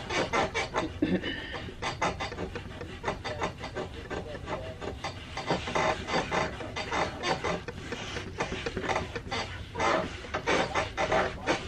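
Cloth rubbed across a wooden table top in repeated back-and-forth wiping strokes.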